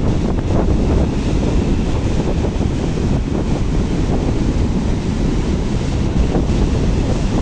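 Surf breaking and washing along the shore, a steady loud rush under heavy wind buffeting on the microphone.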